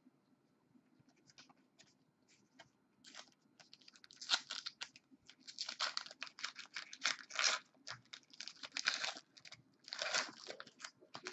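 Foil wrapper of a trading card pack crinkling and tearing as it is handled and ripped open. A few light crackles at first, then dense crackling from about four seconds in.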